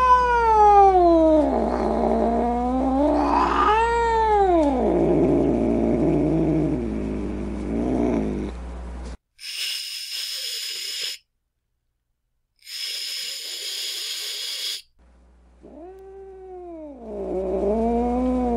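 Angry domestic cat yowling: two long drawn-out yowls that rise and then fall in pitch, trailing off into a lower moaning growl. Midway come two harsh, noisy bursts of about two seconds each with a short silence between them, then another rising-and-falling yowl near the end.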